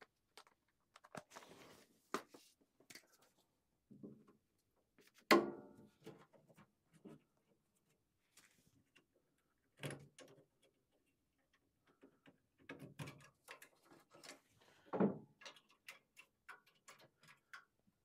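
Scattered clicks, taps and metal knocks of hand tools and furnace parts being handled. The loudest is a sharp metal clank with a brief ring about five seconds in, and heavier knocks come near ten and fifteen seconds.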